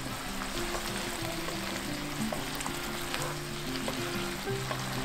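Eggplant, green beans and sauce stir-frying over high heat in a wok, sizzling steadily, with occasional short clicks and scrapes of a wooden spatula against the pan. Soft background music plays underneath.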